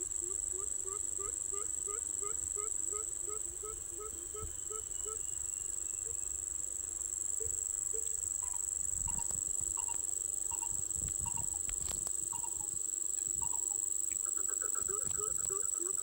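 A coucal giving a series of short, low hoots, about three a second; the hoots stop after about five seconds and start again near the end. A steady, high-pitched insect drone runs underneath.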